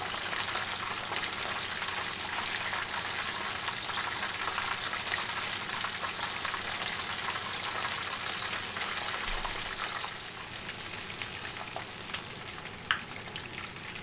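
Whole mangrove snapper frying in hot oil in a skillet: a steady crackling sizzle that eases slightly about ten seconds in, with one sharp click near the end.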